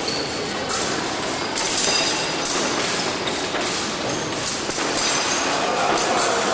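Épée fencing bout: quick footwork thuds and the clicks and taps of the blades meeting, many short knocks in irregular succession, with a few brief high rings, over a steady hall din.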